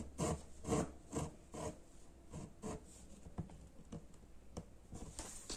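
Embroidery needle and thread being drawn back and forth through tightly woven new cotton fabric stretched in a hoop while working a filling stitch. A run of short pulls, about two or three a second, louder in the first two seconds and fainter after.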